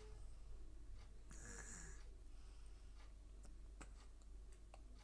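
Faint stirring of gram-flour batter with a steel spoon in a steel bowl: a brief scraping swish, then a few light clicks of spoon on bowl, over a low steady hum.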